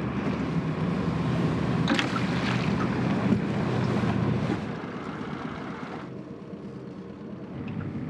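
Boat motor idling with a steady low hum, under wind buffeting the microphone; the sound drops in level about halfway through.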